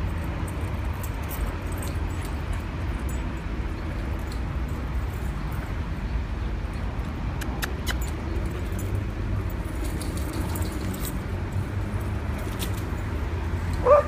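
Steady low rumble of city traffic with faint scattered clicks as small dogs run about; near the end a single short dog bark, the loudest sound.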